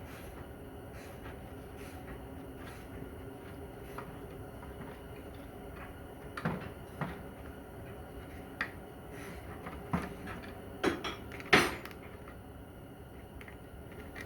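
Scattered metallic clinks and knocks of hand tools and transmission parts being handled, the loudest about eleven and a half seconds in, over a faint steady hum.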